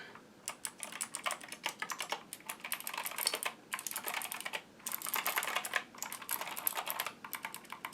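Rapid typing on a Skyloong GK61 60% mechanical keyboard with optical blue clicky switches: fast runs of clicking keystrokes broken by a few short pauses, sounding hollow.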